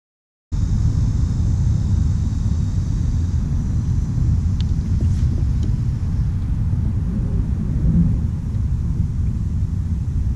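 Low, steady rumble of wind buffeting the camera's microphone, cutting in abruptly about half a second in.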